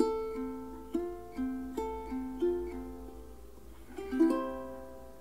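A plucked string instrument picking a slow, gentle melody of single notes, each decaying after it is plucked. About four seconds in, a louder chord rings out and fades.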